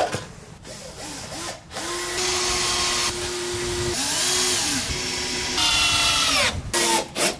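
Circular saw starting up and running through wet wooden decking: its motor pitch sags under load about halfway through, picks up again, then winds down near the end. A sharp knock at the very start.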